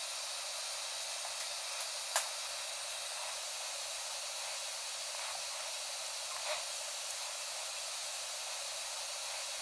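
A steady, even hiss with no low end, with a short click about two seconds in and a fainter one later.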